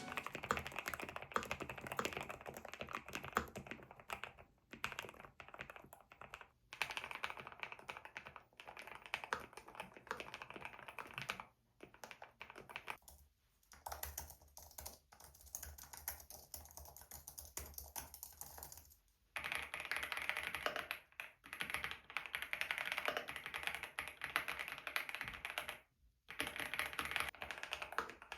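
Typing on a Lofree Flow 2 low-profile mechanical keyboard: runs of fast key clicks broken by brief pauses, the typing getting louder and denser about two-thirds of the way through.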